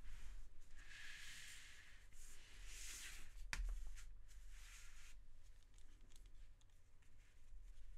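Sheets of drawing paper being shifted on a desk: a few short scraping rustles, with one sharp tap about three and a half seconds in.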